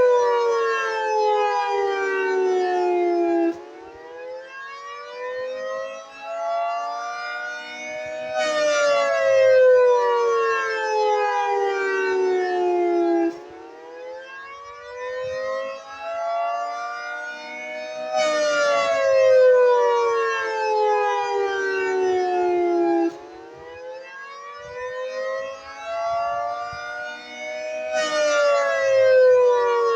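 Federal Signal 3T22 dual-tone rotating outdoor warning siren sounding the attack signal: a wail whose pitch climbs and falls again about every ten seconds, getting quieter at each low point.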